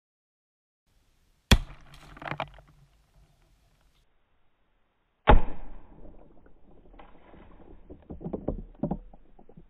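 Two sharp cracks from a Ruger Blackhawk Elite .177 break-barrel air rifle firing pellets, about four seconds apart. The second and louder one bursts a water balloon and is followed by a few seconds of splashing and knocking.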